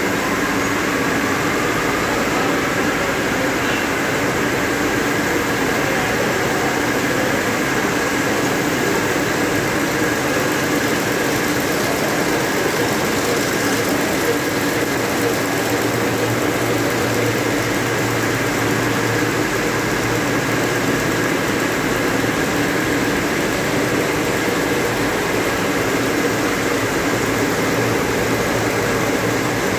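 High-speed needle looms running, weaving narrow tape, with a steady mechanical noise and hum. A deeper hum joins about halfway through.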